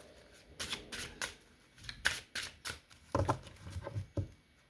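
Tarot cards being shuffled and handled: a run of sharp card snaps and flicks, with a few duller knocks partway through.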